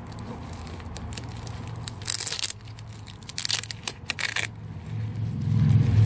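Rustling and crinkling as small survival gear is handled and packed, in two bursts about two and three and a half seconds in. A low rumble of passing road traffic builds near the end.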